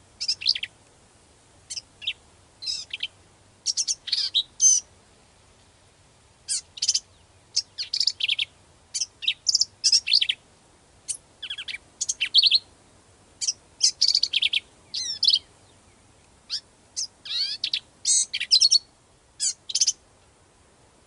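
After-second-year male black-capped vireo singing while sitting on his nest during incubation: a long run of short, varied, high-pitched phrases with quick up-and-down sweeps, roughly one a second, separated by brief pauses.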